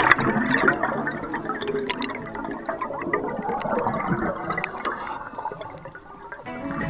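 Scuba diver's exhaled air bubbling out of the regulator underwater, an irregular gurgling rush that eases off a little near the end.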